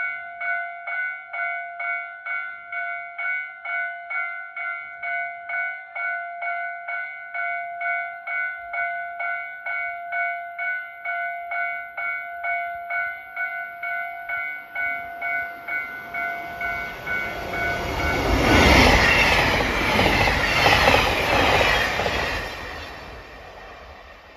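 A railway crossing warning bell dings about twice a second while a train approaches. The train then passes through the station without stopping, swelling to a loud rush of wheels on rail with clickety-clack, and fades away near the end.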